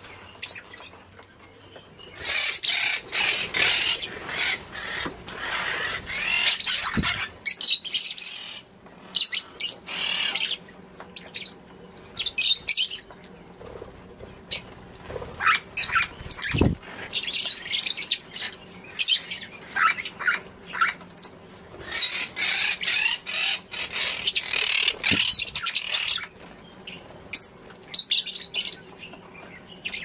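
A flock of African lovebirds chattering in long bursts of shrill, rapid chirps and squeaks, with quieter gaps between the bursts and wings fluttering now and then. There are a couple of short knocks.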